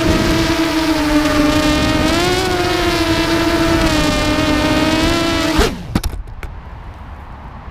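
Brushless Multistar Elite motors and 5-inch propellers of a Shrike FPV quadcopter whining at a steady high pitch, rising briefly about two and a half seconds in. The whine cuts off abruptly about five and a half seconds in, with a few sharp clicks, leaving a quieter background hiss.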